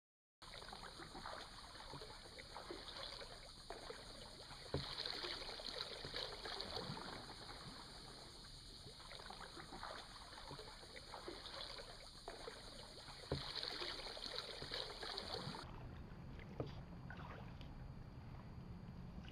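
Kayak paddling on calm water: uneven water noise from the paddle, with a few sharp knocks of the paddle against the hull. Over it, a high steady insect buzz from the trees swells and fades several times, then stops abruptly about three-quarters of the way through.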